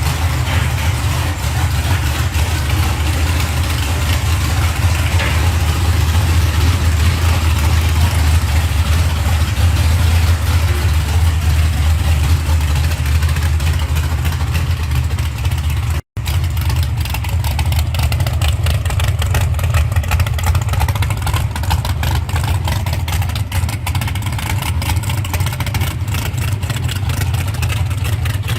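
Car engine running with a steady low rumble, cut off for a split second about sixteen seconds in.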